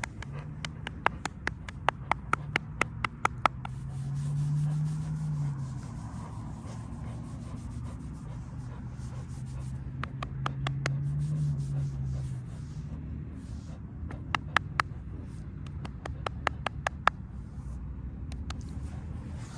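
Close rubbing and scraping, with quick runs of sharp clicks in several clusters and a low hum that swells twice.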